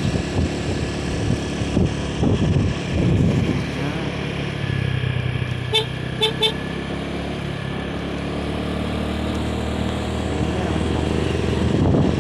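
Motor vehicle engine running steadily on the move, with road noise. Three short horn toots come close together about six seconds in.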